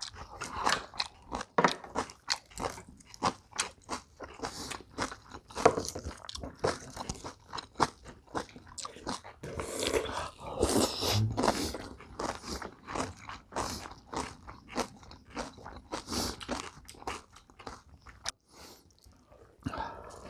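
Close-up chewing of bibimbap with young radish and napa cabbage kimchi: a steady run of crunching bites and chewing clicks, denser in two stretches past the middle.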